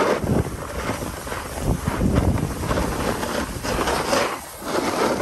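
Snowboard sliding on packed snow, its edge scraping in swells that rise and fall with each turn, with wind buffeting the microphone.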